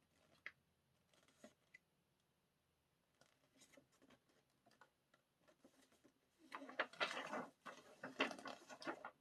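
Handling noise from unboxing album contents: scattered light taps and clicks, then a louder stretch of rustling from about six and a half seconds in, as paper inserts and pages are handled.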